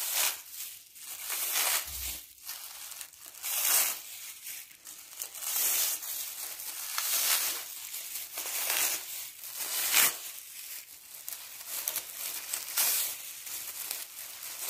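Clear plastic sleeves on artificial Christmas tree branches crinkling in irregular bursts as the branches are handled, with a sharper crackle about ten seconds in.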